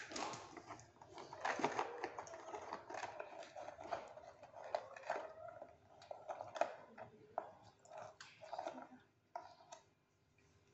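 Toddlers' hands in a plastic food container while they eat: a run of small clicks, taps and rustles, with some chewing.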